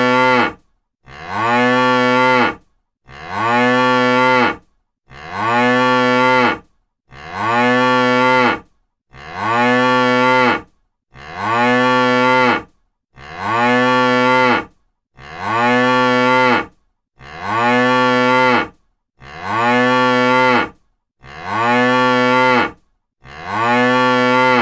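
Cow mooing: the same single moo repeated over and over, one every two seconds, each a steady low call about a second and a half long that swells in at the start.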